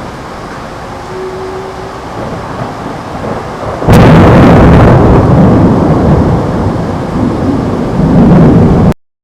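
A steady hiss of the thunderstorm, then a sudden loud clap of thunder about four seconds in. A sharp crack gives way to heavy rumbling that stays loud for about five seconds, until the sound cuts off abruptly.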